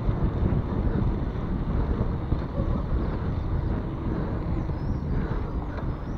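Wind rushing over the microphone of a mountain biker riding along a paved street: a steady, uneven low rumble.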